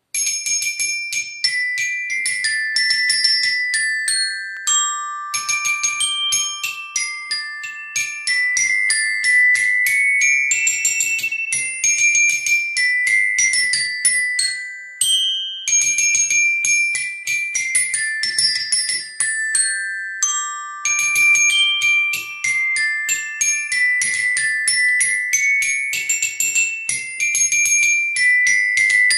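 Chromatic glockenspiel played with two mallets: a quick melody of bright, ringing metal-bar notes, with the same phrase coming back several times.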